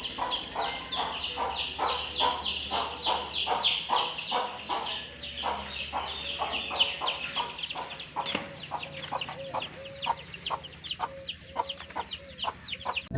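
Chickens calling: a long run of short, falling chirps, about three or four a second, a little fainter in the later part.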